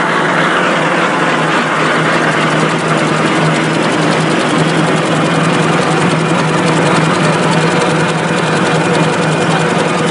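VTM-200-8L 8-line V-fold facial tissue interfolding machine running at production speed: a loud, steady mechanical din over a constant low hum.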